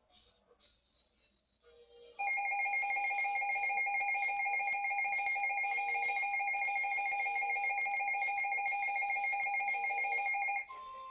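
Emergency alert attention tone: a loud, trilling electronic tone of two pitches starts about two seconds in and holds steadily for about eight seconds. Near the end it switches to a quieter single steady tone.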